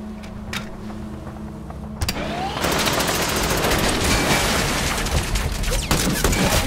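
A low steady hum with a few faint clicks, then about two seconds in a multi-barrel rotary cannon opens fire in one loud, continuous, very fast burst.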